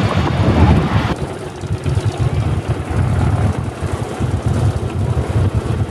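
For about the first second, the loud rush of aircraft flying past; it cuts off abruptly, giving way to World War II piston-engined warbirds idling as they taxi, a low uneven throb.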